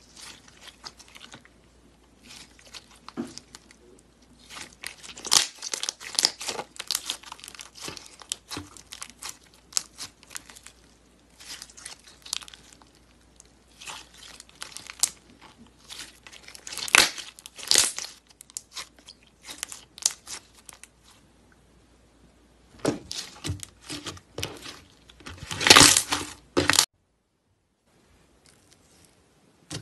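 Clear slime loaded with sequins and glitter being stretched and squeezed by hand, giving irregular crackling and small popping clicks, with louder bursts of crackle now and then. The sound breaks off briefly near the end.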